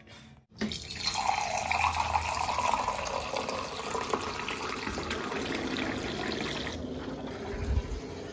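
Water running from a kitchen tap into a vessel, starting about half a second in and running steadily.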